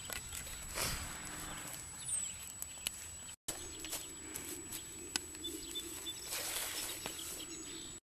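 Outdoor field ambience: steady wind-like noise with scattered faint clicks and a single short bird chirp about two seconds in. The sound drops out for an instant just before halfway, then carries on with a low steady hum under the noise.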